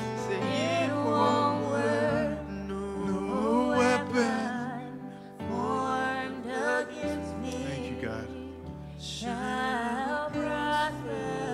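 Live worship music: a man singing held, wavering melodic lines into a handheld microphone over sustained band chords and bass that change every couple of seconds.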